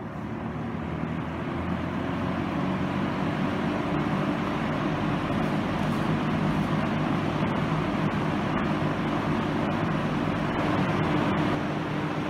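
Dayton 4C418 20-inch box fan running on high speed: a steady rush of air over a low motor hum, growing louder over the first two seconds and then holding even.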